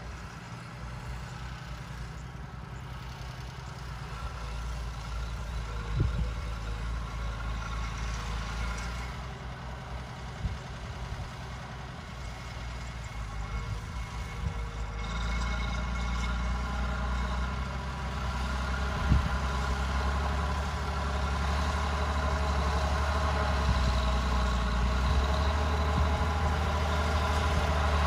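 Massey Ferguson tractor's diesel engine running steadily under load while pulling a mounted plough, growing louder as the tractor comes closer, with two sharp clanks, one about six seconds in and one about two-thirds of the way through.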